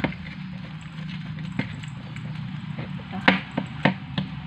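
A stirrer tapping and clicking against a plate while slime is stirred, a few sharp irregular taps, over a steady low hum.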